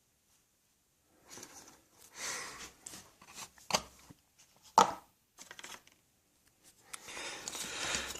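Crate items and packaging being handled by hand: scattered rubbing and rustling, with two sharp knocks about a second apart in the middle and a longer rustle near the end.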